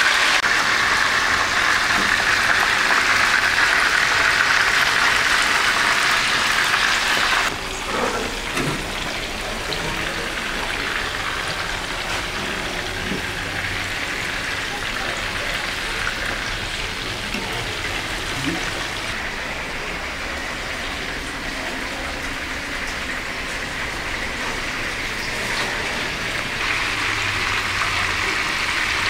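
Potato wedges sizzling in hot oil in a frying pan, a loud steady hiss. About seven seconds in it cuts off abruptly to a quieter, steady sizzle that grows a little louder near the end.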